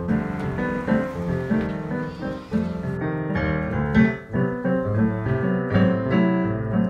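Piano music: a Roland digital piano played with both hands, a steady run of notes and chords over a bass line. A faint hiss lies under the first half and stops about three seconds in.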